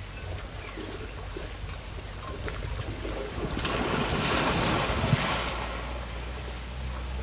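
Water buffaloes wading and splashing through shallow floodwater, the sloshing swelling louder for about two seconds in the middle. A steady high-pitched whine runs underneath, along with low wind rumble on the microphone.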